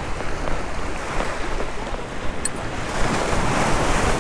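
Waves breaking and washing over the boulders of a rock jetty, with wind buffeting the microphone. The wash swells a little louder about three seconds in.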